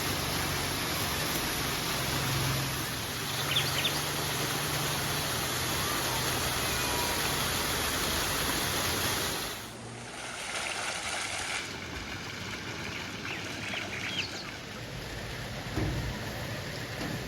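River water running steadily, with small birds chirping briefly now and then. About ten seconds in, the rush drops suddenly to a quieter level.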